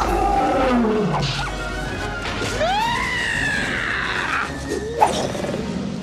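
Film score playing under animal cries from an animated battle scene: a cry sliding down in pitch at the start and a long cry that rises and then falls about two and a half seconds in, with a sharp hit about five seconds in.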